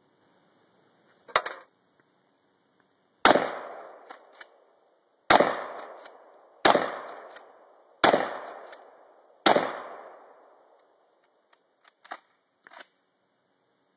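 A sharp clack, then five gunshots about one and a half to two seconds apart, each followed by a long echoing tail. A few faint clicks come near the end.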